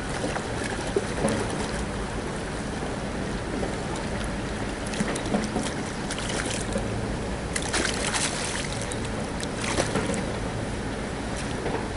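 A hooked trout splashing and thrashing at the water's surface as it is played in on a fly rod and netted, in several short bursts, the busiest a little past the middle and again around the netting. Under it runs a steady rushing background.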